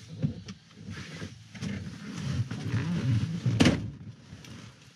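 Someone climbing into a pickup's driver seat: shuffling and rustling of body and clothing against the seat, with one sharp knock about three and a half seconds in.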